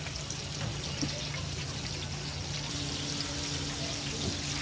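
Tteokgalbi (minced short-rib patties) frying on a flat-top griddle, a steady sizzle, with a couple of faint taps of a metal spatula.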